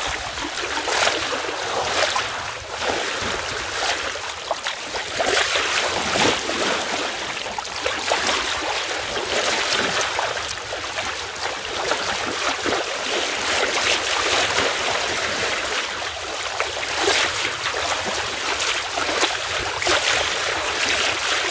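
Sea water rushing and splashing along a sailing yacht's hull under sail, the bow wave hissing in uneven surges every second or two.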